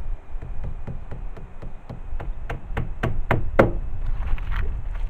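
Hammer driving a nail through bitumen roofing felt into the timber boards of a dog kennel roof: about a dozen quick taps, roughly four a second, getting harder toward the heaviest strike about three and a half seconds in, then a few lighter ones. Wind rumbles on the microphone.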